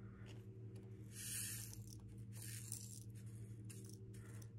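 A brief soft hissing rattle about a second in, from small resin diamond-painting drills being poured out of a container, with a few faint clicks over a steady low electrical hum.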